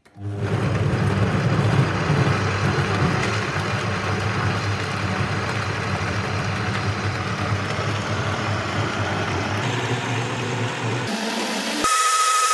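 Vitamix high-power blender switched on and running, a loud steady whir of the motor and blades churning a full jar of tomatoes, stock and bread into soup. Near the end the sound changes, the low part falling away and a higher steady whine coming in.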